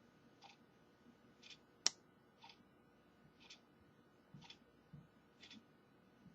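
Faint ticking, evenly once a second, like a clock in a quiet room, with one sharp click just under two seconds in and a few soft knocks in the second half from small tools working at the phone.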